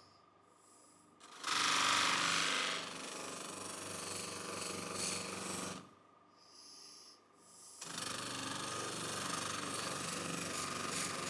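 Noisy tool work on the restored soldering iron's parts, running in two stretches with a short pause between them.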